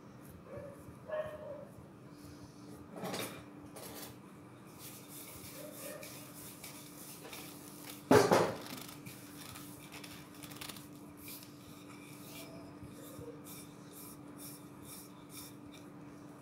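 Bread dough being worked by hand on a wooden board, with soft pressing and rubbing sounds. About eight seconds in comes one loud slap as the dough meets the board.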